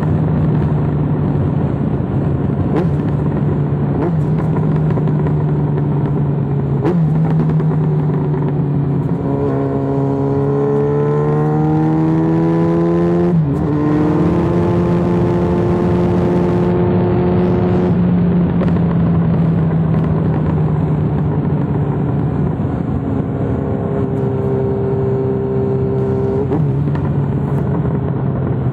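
Yamaha XJ6N's 600 cc inline-four engine running through an Arrow full exhaust, with a few sharp pops and cracks from the exhaust scattered through. About nine seconds in the revs climb for a few seconds, drop sharply, then hold and slowly ease off.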